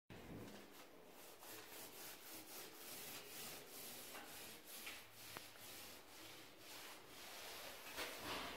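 Faint, irregular rubbing and scuffing noises, a few a second, with one small click about five seconds in.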